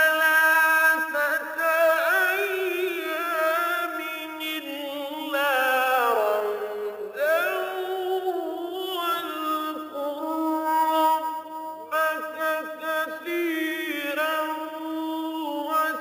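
A man reciting the Quran in a melodic chant, holding long notes with ornamented rises and falls in pitch.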